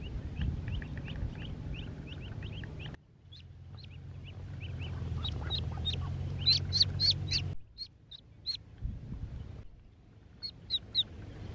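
Ducklings peeping: a quick run of short high-pitched peeps that grows louder about six to seven seconds in, with a few more near the end, over a low steady rumble. The sound breaks off abruptly twice.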